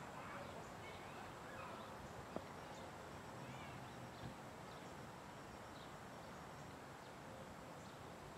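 Faint open-air ambience with small birds chirping now and then, and one sharp click a little over two seconds in.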